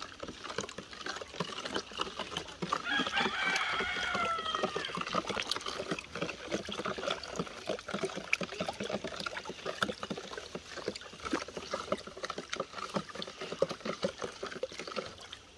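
Carrot juice being stirred with a metal spoon in a plastic basin to dissolve added sugar: a continuous liquid swishing with many small clicks and taps of the spoon. A brief high call in the background about three seconds in.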